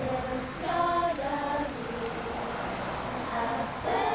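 Group of girls and young women singing a Lucia song together, holding long notes; a new phrase begins near the end.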